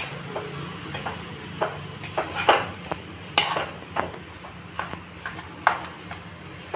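A wooden spatula stirs and scrapes mashed potato filling around a nonstick pan, knocking against the pan in irregular strokes, about one or two a second, over a steady low hum.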